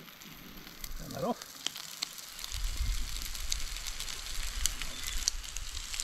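Food sizzling and crackling in a frying pan, with scattered sharp pops over a faint hiss. A low rumble joins in about two and a half seconds in.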